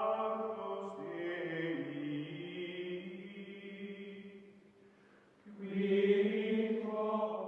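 Outro music: long held, chant-like tones with rich overtones. The pitch steps down about a second in, the sound fades almost away near five seconds, then swells back up.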